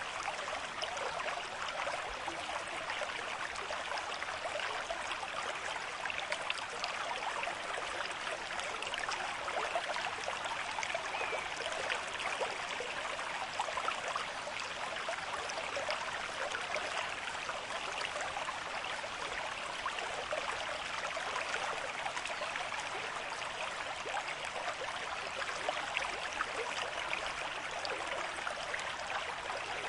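River stream with a moderate flow, running and babbling over stones in a steady splashing rush.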